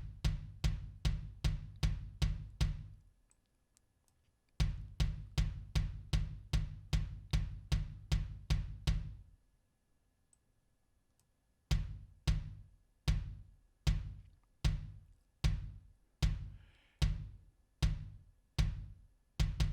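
Kick drum track played back, its hits replaced by Slate Trigger samples with a narrowed velocity range: steady, consistent kicks about two and a half a second, varying a little in strength. They stop twice for a couple of seconds and come back slower after the second stop.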